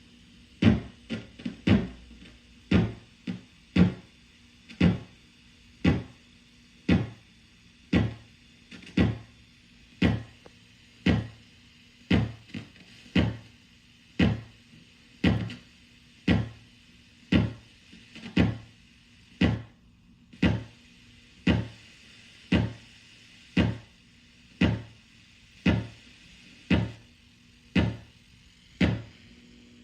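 Homemade analog drum circuit (an op amp with a bridged-T network) sounding through a speaker, triggered about once a second. Each hit is a short pitched thump with a sharp click at the start and a fast-dying tone, tuned up toward a tom. A few quicker, uneven hits come in the first two seconds.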